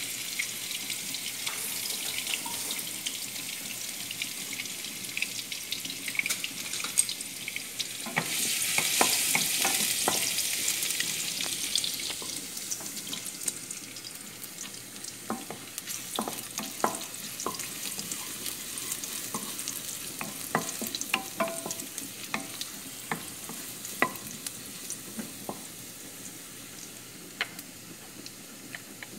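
Minced garlic sizzling in hot oil in a nonstick frying pan, stirred with a wooden spatula that clicks and scrapes against the pan. The sizzle swells about eight seconds in, then slowly dies down.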